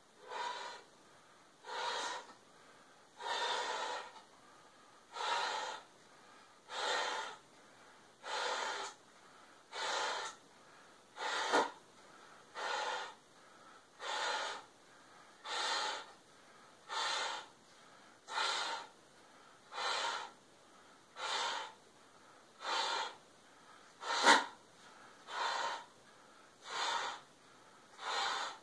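A person breathing hard while blowing up a swimming cap by mouth through a tube: a loud rushing breath about every one and a half seconds, keeping up a steady rhythm, with two sharper, louder gasps among them.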